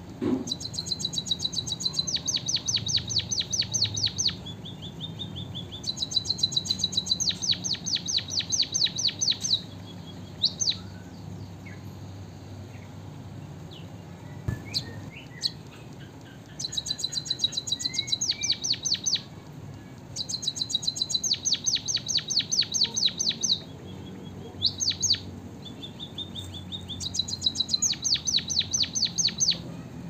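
A caged white-headed munia singing: five bouts of fast, high, rattling trills, each lasting a few seconds, with short pauses between. The song is filled with canary phrases it has learned. A single thump right at the start.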